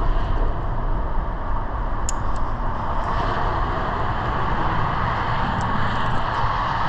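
Steady rush of highway traffic, tyres and engines blending into one continuous noise with no pauses.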